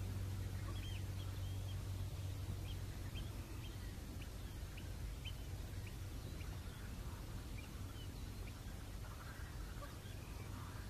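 A bird chirping repeatedly in short high calls, about two a second, stopping after about eight seconds. Under it runs a steady low hum that is strongest at the very start.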